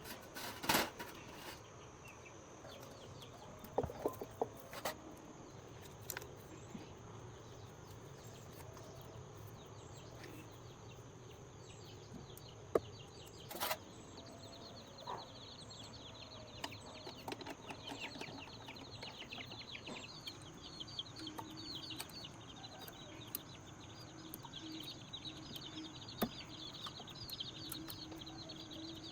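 Birds chirping in quick, high calls that grow busier from about halfway through, with scattered sharp knocks and clicks in the first half.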